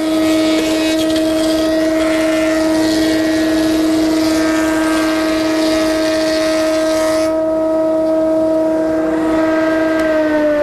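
Benchtop surface planer running with a loud, steady whine while resawn quarter-sawn white oak strips are fed through to plane off the saw marks. A dense hiss of cutting runs over the whine until about seven seconds in, then stops. Near the end the whine drops slightly in pitch as another board is fed in.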